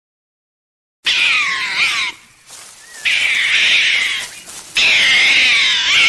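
Meerkats calling: a run of long, shrill, wavering calls, starting about a second in and repeated three times with short breaks between them.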